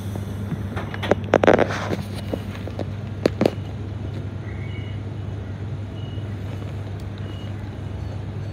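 Steady low hum of a stopped Queensland Rail SMU 220 series electric suburban train, heard from inside the carriage with the doors open, with a few loud clattering knocks in the first few seconds and faint short high peeps now and then.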